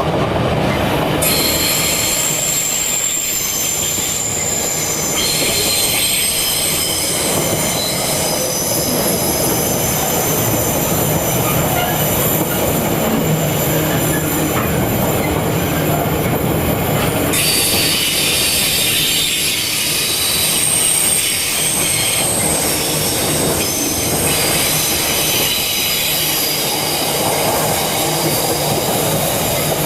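Freight train wagons rolling past with the wheels squealing, several high steady tones that change pitch a few times over the rumble and clatter of the wagons.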